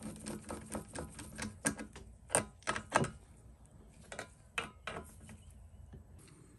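Quick run of light clicks, a few of them louder, then sparser clicks, as the small nuts holding the air-filter cover of a Ryobi HT26 hedge trimmer are tightened a little at a time.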